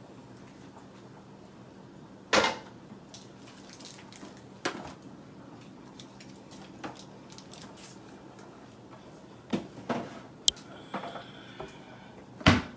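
Wooden spoon knocking and scraping against a disposable aluminium foil pan while cooked pasta is stirred: scattered knocks and scrapes, with a sharp knock about two seconds in and a louder thump near the end.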